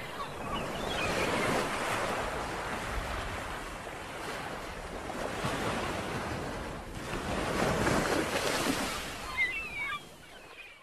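Ocean surf: a steady rushing wash of breaking waves that swells about a second in and again near the end, with a brief lull between.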